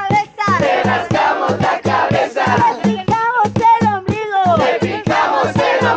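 A group singing and calling out a campfire action song together, voices swooping up and down in pitch, over a steady low beat of about three to four strokes a second.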